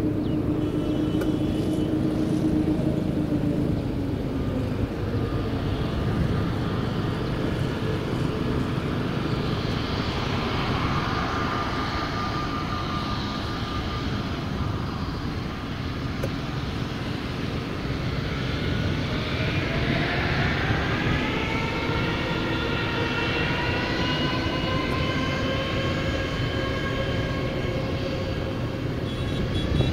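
Airbus A321neo's turbofan engines running at taxi power, with a steady whine; about two-thirds of the way through the whine starts rising in pitch as thrust is brought up.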